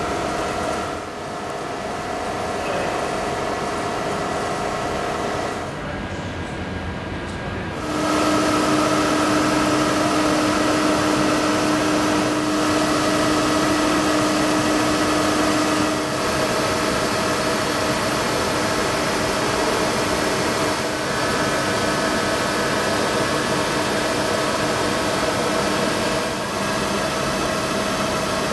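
Large Butler planer milling machine running: a steady mechanical hum with several held whining tones. About eight seconds in it grows louder and a new whine comes in and holds for several seconds.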